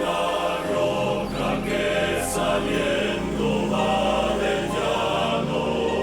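Music: the opening of a Colombian bolero, with slow, held choir-like chords before any sung words.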